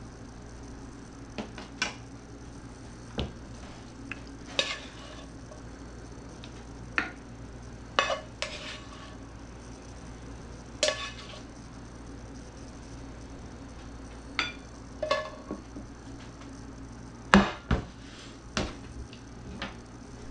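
A spatula and fork clinking and scraping against a sheet pan, a frying pan and a ceramic plate as food is served: about a dozen scattered clicks and scrapes, the loudest about 17 seconds in, over a low steady hum.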